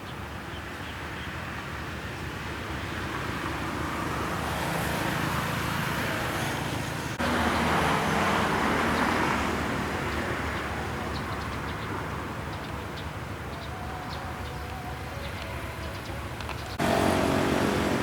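Diesel locomotive of a waiting freight train, its engine running with a steady low rumble. It turns suddenly louder about seven seconds in, and again near the end, with a clearer engine note.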